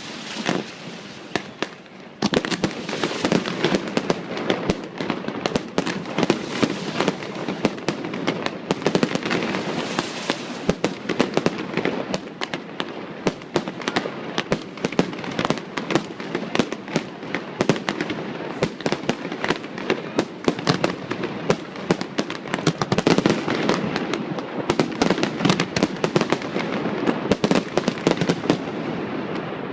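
Fireworks display: a few separate bangs, then, from about two seconds in, a dense, unbroken barrage of bangs and crackling.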